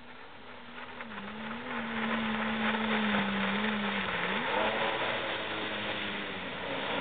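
1200 cc Sea-Doo jet ski engine running hard, growing louder as the craft closes in, its steady drone wavering and briefly dipping then climbing again about four seconds in, over the rush of its spray.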